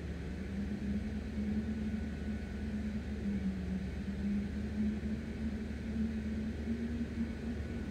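A steady low mechanical hum with a slowly wavering drone under it, over a faint noise.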